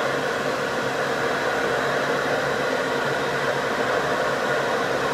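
CB radio receiver static: a steady hiss from the radio's speaker on a channel where nobody is transmitting.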